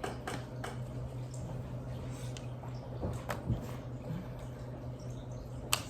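Quiet room tone: a steady low hum with a few light clicks, the sharpest near the end.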